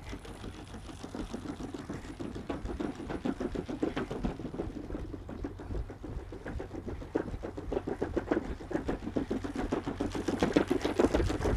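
Two Unitree Go1 robot dogs trotting and running on decking: a fast, even clatter of many footfalls mixed with the whir of their leg motors, getting a little louder near the end.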